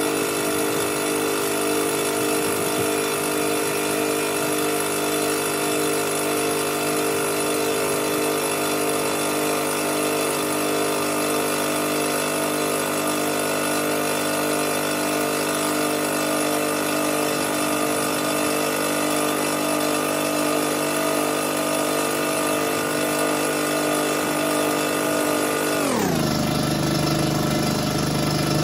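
Fortress 5-gallon air compressor running steadily as it pumps up the tank, testing a newly fitted pressure switch. Near the end its pitch drops sharply within about a second, and it keeps running at a lower, deeper pitch.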